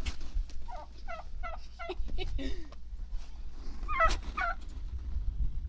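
Turkeys gobbling: quick runs of warbling notes about a second in and again about four seconds in, with a lower call in between.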